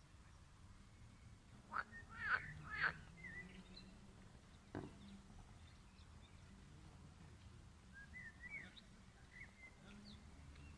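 Wild birds twittering faintly, with a few short, louder calls close together about two seconds in and another about five seconds in.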